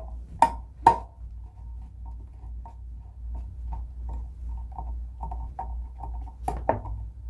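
Decorator screws being hand-driven to fasten a Hampton Bay ceiling light fixture's metal canopy to its mounting plate: two sharp metallic clinks about half a second and a second in, then a run of faint, even ticks, about three a second, and two more clinks near the end.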